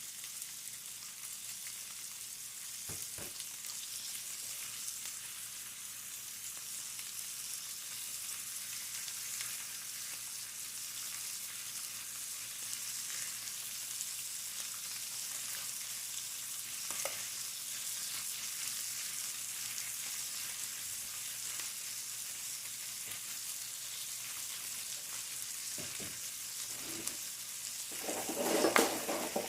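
Food sizzling steadily in a hot frying pan, with a few light knocks of a utensil and a louder burst of stirring and clatter near the end.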